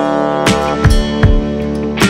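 Background music: guitar over a steady drum beat.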